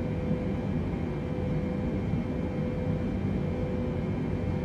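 Airliner's jet engines and airflow making a steady rumble, with a faint high whine held over it.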